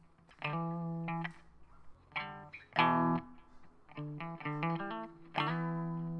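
Outro music: a guitar with effects playing a run of short chords, each struck, held briefly and cut off.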